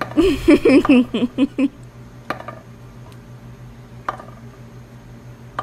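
A husky whining and yowling in a few short rising-and-falling calls for the first second and a half. Two light sharp taps follow, about two seconds apart.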